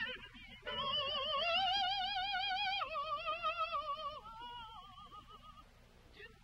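A woman's contralto voice singing a spiritual, holding long notes with a wide vibrato. After a short note at the start, a long high note is held from about a second in, steps down to lower notes near the middle, and fades out about a second before the end.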